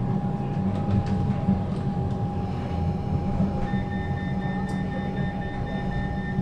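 Inside a Melbourne suburban train carriage: a steady low rumble and hum from the train, with a steady high tone coming in a little past halfway.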